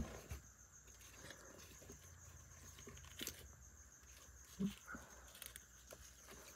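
Near silence: faint rustles and soft taps of fingers handling hatchling monitor lizards in a plastic tub of eggshells and substrate, with a steady faint high-pitched tone in the background.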